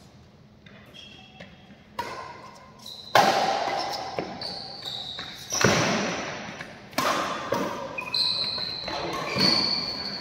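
Badminton rackets striking a shuttlecock in a rally: about six sharp hits, roughly one to one and a half seconds apart, starting about two seconds in, each ringing on in the echo of the hall. Short high squeaks of shoes on the court come between the hits.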